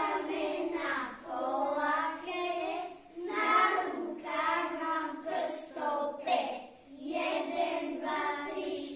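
A small group of first-grade children singing a song together, line by line with short breaks between phrases.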